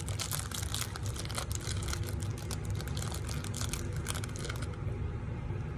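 A person chewing food close to the microphone: a dense run of small clicks and crackles over a steady low hum, the crackle thinning out near the end.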